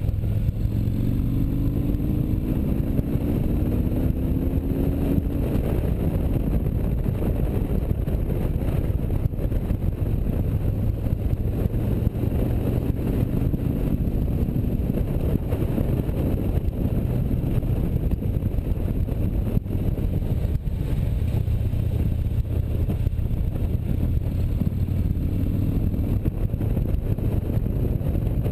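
Touring motorcycle running at road speed on a winding road, engine note over a steady rush of wind noise; the engine pitch rises as it accelerates, about a second in, again around halfway and once more near the end.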